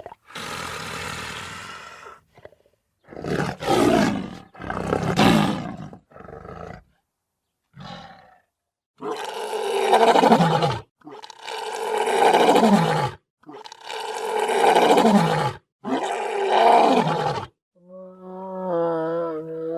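Big cat roaring: a series of separate loud roars, each falling in pitch, with four long roars in a row in the second half. Near the end a different, steady pitched call begins.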